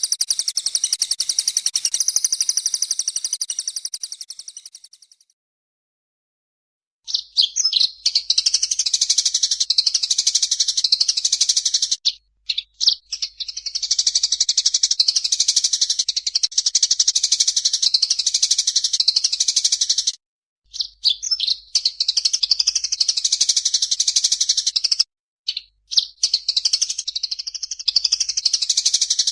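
Recorded songbird song: a dense, high, fast trill that fades out over the first few seconds, then after a short silence a different high, continuous chattering song broken by a few brief pauses.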